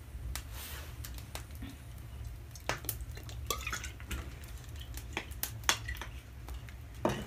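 Scattered light clinks and knocks of metal kitchen utensils and steel bowls, most of them between about two and a half and six seconds in, over a steady low hum.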